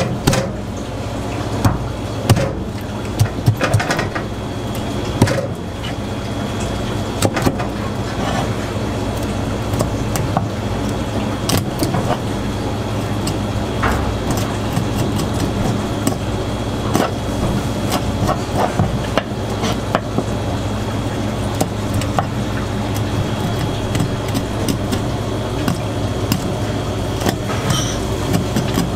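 A kitchen knife cutting through pufferfish flesh and tapping on a plastic cutting board, giving scattered short clicks and knocks. Under it runs a steady machine hum with a faint high whine.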